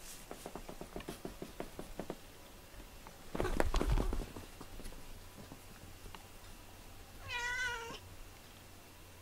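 A fast run of light knocks for about two seconds, then a loud thump with a low rumble about three and a half seconds in, and near the end a domestic cat meows once, a wavering call lasting under a second.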